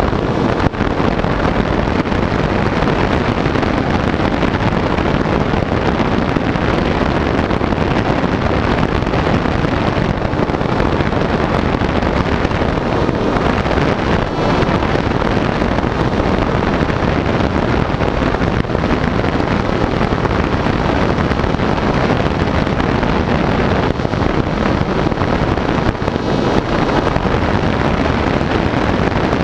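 Steady rush of wind over an onboard camera's microphone, mixed with the electric motor and propeller of a model FPV plane in flight.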